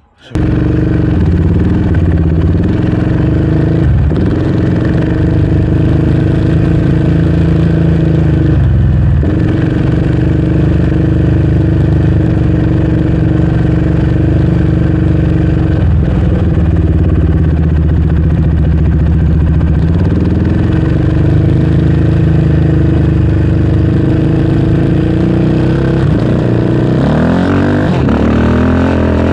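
Yamaha Raptor 700R's single-cylinder four-stroke engine running under way, its note dipping briefly a few times and revs rising near the end as it accelerates.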